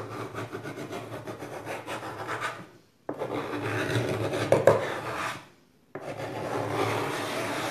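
Hand sanding on the painted wooden tabletop: an abrasive scrubbed back and forth over the planks in three spells, with short pauses about three seconds in and near six seconds. The paint is being worn through to give the table a distressed, scratched patina.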